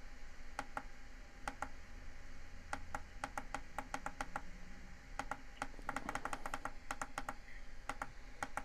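Repeated clicking of a small plastic push-button on top of a Keebly digital alarm clock, pressed over and over in short quick runs, each press stepping the night light to its next colour.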